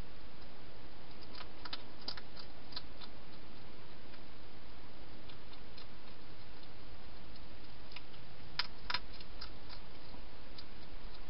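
A wild hedgehog eating in a plastic feeding box: irregular sharp little clicks of crunching food, in a cluster about two seconds in and another near nine seconds, over a steady background hiss.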